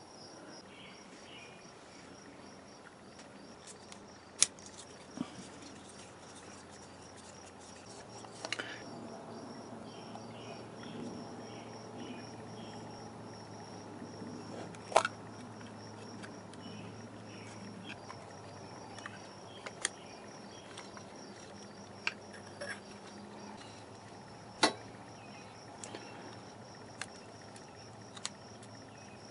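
Crickets chirping steadily in the background, with a few sharp clicks and taps from hands and tools working the carburetor and throttle cable free, three of them louder than the rest.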